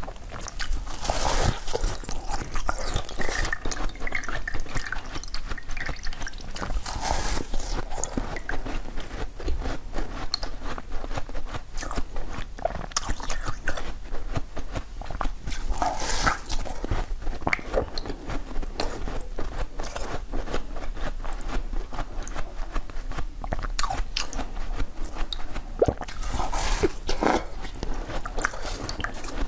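Close-miked biting and crunching of a frozen block of basil-seed ice, with crackling chewing throughout. A few louder bites come several seconds apart.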